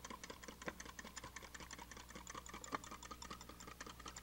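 Wire whisk clicking rapidly and lightly against the sides of a glass measuring cup, whisking olive oil into white wine and vinegar for a vinaigrette.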